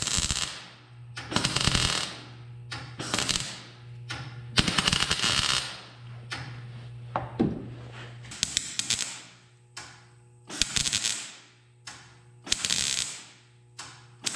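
MIG welder tack-welding thin sheet-steel door metal in about eight short crackling bursts, each a second or so long with pauses between. The welding is done in short stitches because the thin metal burns through the moment the arc touches it.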